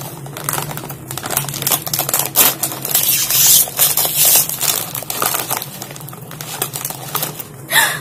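Plastic snack bag crinkling and crackling as it is handled and torn open by hand, the crackle busiest about three to four seconds in.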